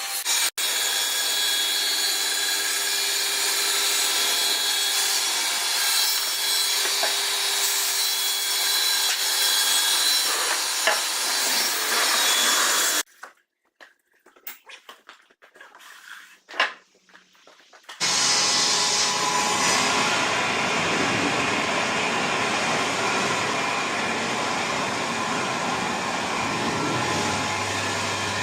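Sawmill blade cutting through timber: a steady, noisy rasp that cuts off abruptly about thirteen seconds in. After a few seconds of near quiet with scattered clicks, a machine runs steadily with a low hum.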